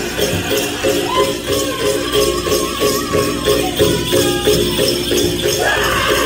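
Powwow drum group playing a prairie chicken dance song: a big drum beaten in a steady beat of about three strokes a second under group singing, with dancers' bells jingling. A sung phrase rises in pitch near the end.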